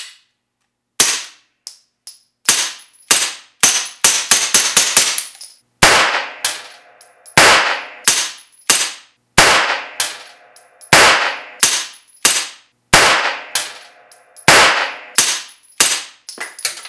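Suppressed 9mm Beretta pistol firing subsonic rounds through an AB Suppressor F-4L, a long string of shots about one every half second to a second, each a sharp crack with a short tail. The subsonic load is right on the edge of being able to cycle the action.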